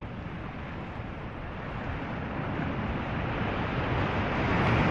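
Steady rushing of sea waves and wind, with no distinct events, swelling gradually louder. It cuts in after a momentary gap at the very start.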